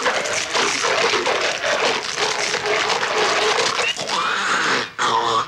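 Horror-film sound effects: zombie snarling and grunting over wet, splattering gore, dense and continuous, with a short gap about five seconds in.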